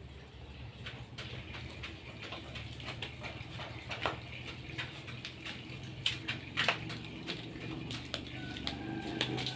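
Scattered light clicks and knocks over a steady low hum. Near the end a chicken begins to cluck.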